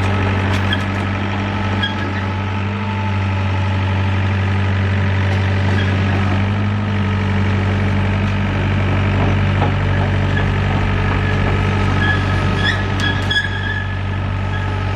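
A 6-ton mini excavator's Yanmar diesel engine running at a steady, unchanging speed. A few light clicks and squeaks come about twelve to thirteen seconds in.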